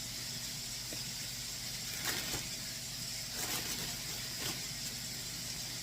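Oil sizzling steadily as French fries deep-fry in a small Fry Daddy fryer, with a few sharp crackles about two and three and a half seconds in.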